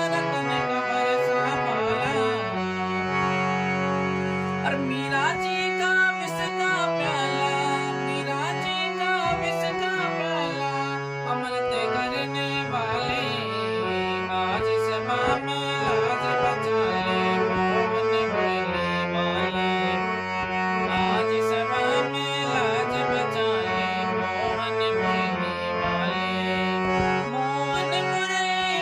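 Harmonium playing a devotional bhajan melody on long held reed notes, with a man's voice singing along.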